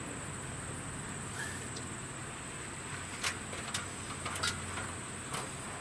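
A few sharp metallic clicks and knocks from the stovepipe tee and pipe sections being handled and fitted. Under them runs a steady high insect drone.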